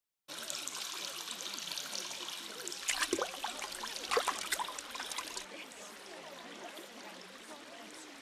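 Steadily running, trickling water of a bathing pool, with a few brief sharper sounds between about three and four and a half seconds in; the water sound drops quieter about five and a half seconds in.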